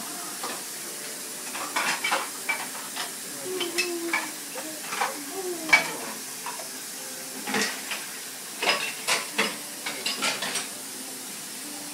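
Dishes and cutlery clinking and clattering in irregular sharp clinks as they are handled at a kitchen sink, over a steady hiss.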